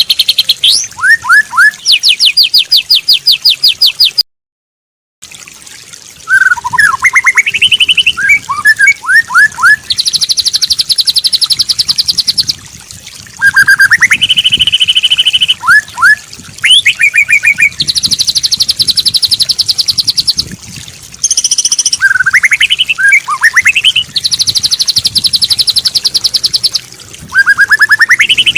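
White-rumped shama singing a loud, varied song of rapid repeated trills and series of rising whistled notes, with a short complete break about four seconds in.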